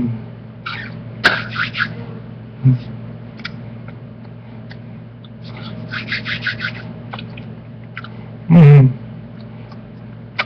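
A man's quick bursts of hand claps, twice, over a steady electrical hum. Near the end comes a loud, short wordless vocal whoop that falls steeply in pitch.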